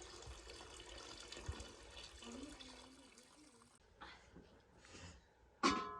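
Water running or pouring, as a steady rushing that fades out about four seconds in. Near the end comes a brief, loud sound with several steady tones.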